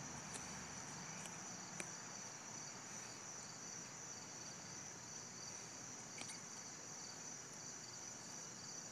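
Faint, steady high-pitched chirring of insects, with a few soft clicks.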